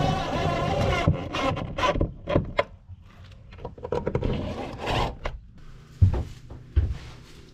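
Cordless drill whining for about the first second. Then scrapes and sharp knocks, and duct tape being peeled off a window pane around four to five seconds in.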